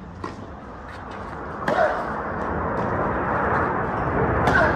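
Tennis ball struck by racket during a baseline rally on a clay court: a faint hit shortly after the start, then two sharp, ringing strikes about three seconds apart. Under them, a murmur of crowd chatter that grows louder.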